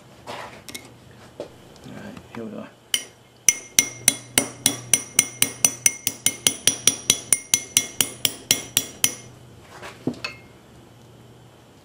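A hammer tapping a socket used as a driver to seat a new seal in a hydraulic floor jack until it bottoms out. A couple of single taps come first, then a quick even run of about two dozen taps, about five a second, each with a metallic ring.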